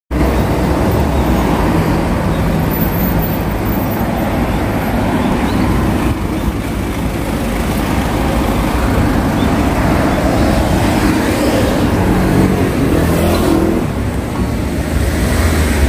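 Steady road traffic noise from a busy city street, with cars and buses running past.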